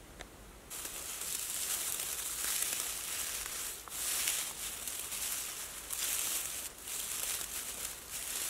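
Dry dead bracken rustling and crackling as hands crumple it and push it into the base of a teepee of sticks, starting about a second in.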